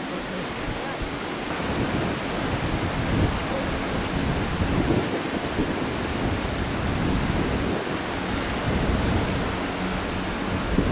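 Wind buffeting the microphone over the wash of the sea. In the second half the low, steady engine hum of an approaching Class 166 diesel multiple unit comes in faintly and grows near the end.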